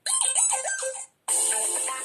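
Stock Samsung Galaxy Pocket ringtones. A short electronic jingle of quick notes plays for about a second, then stops, and after a brief gap a different, fuller ringtone melody begins.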